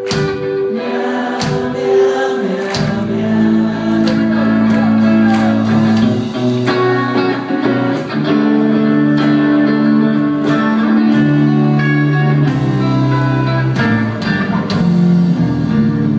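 Rock band playing live on electric guitars, bass and drums, with singing and repeated cymbal crashes, heard loud from within the audience.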